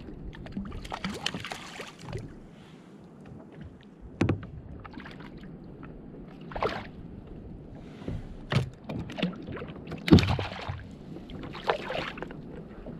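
Water splashing and lapping against a plastic kayak's hull, broken by irregular knocks and clicks of gear being handled on deck. The loudest knock comes about ten seconds in.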